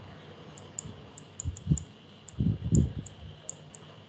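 Light, rapid clicking, about four or five small ticks a second, like keys or a pen tip tapping. A few dull low thumps come in the middle and are louder than the clicks.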